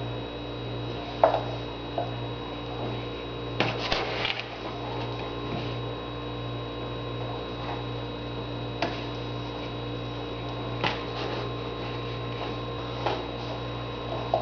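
Steady electrical hum, with a few short light taps and clicks scattered through it: one near the start, a small cluster about four seconds in, and single ones later.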